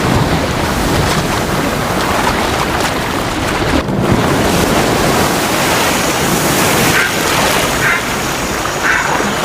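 Water rushing and splashing at the shoreline, a steady wash of surf, with a brief break about four seconds in.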